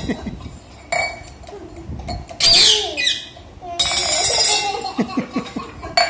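Stainless steel tumbler clattering and rolling on a tiled floor as a rose-ringed parakeet knocks it about, with a shrill falling call from the parakeet about two and a half seconds in.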